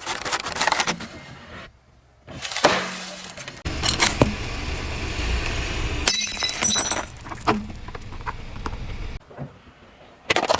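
Things cracking, crunching and breaking under a car's tyre, in several short clips cut one after another, with glassy clinking and shattering. A low rumble from the rolling car sits under the middle clip.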